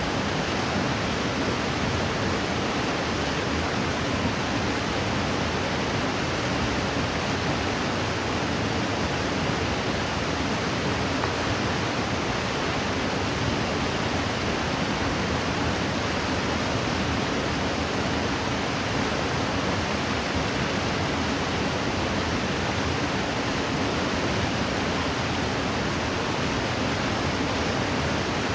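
Steady rushing of river water, an even unbroken rush with no pauses.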